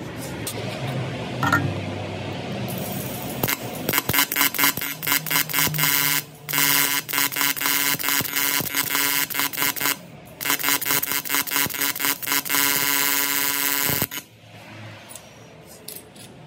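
Welding arc on aluminium plate, a rapidly pulsing buzz in three runs with short breaks between them. It starts a few seconds in and cuts off abruptly near the end.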